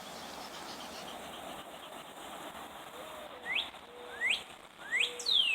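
A bird calling: four short whistled chirps in the second half, about two-thirds of a second apart, the first three rising and the last sliding down, over a faint steady hiss.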